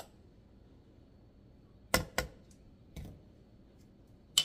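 A few sharp clicks and taps from a metal measuring spoon and a plastic spice jar handled over a mixing bowl of flour: two close together about two seconds in, a faint one a second later, and a louder one near the end, with a quiet room between them.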